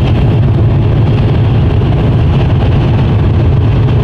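Mercedes-Benz Actros truck cruising at motorway speed, heard from inside the cab: a steady, loud low engine drone with road noise, unchanging throughout.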